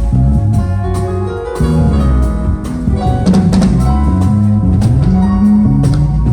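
Live band instrumentation playing during a sound check: a drum kit keeping a beat under a moving bass line and sustained pitched instrument notes.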